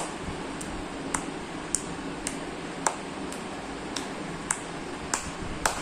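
Hands clapping overhead in a steady rhythm, about two sharp claps a second, over a faint steady hiss.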